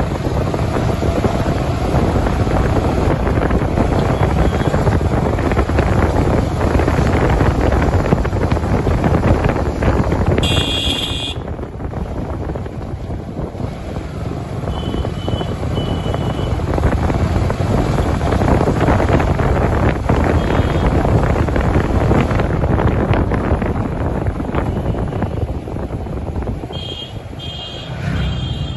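Yamaha R15 V3 motorcycle riding along, with wind buffeting the microphone over the engine. A short high beep sounds about ten seconds in, and a few quick beeps come near the end.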